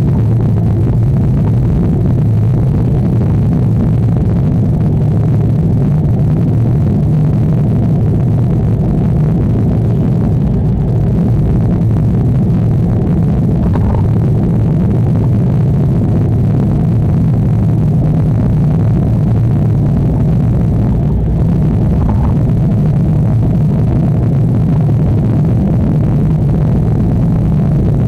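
Steady low rumble of a car's engine and tyres on the road, heard from inside the cabin while driving at a constant pace.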